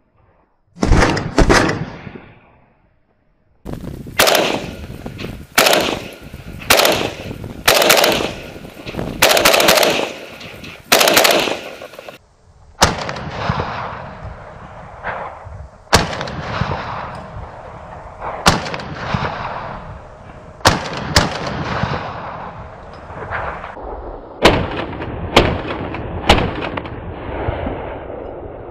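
VULKAN-M bullpup AK rifle fired without a suppressor: a long string of single gunshots, mostly about a second apart with short pauses and a few quick pairs, each shot ringing out over the range.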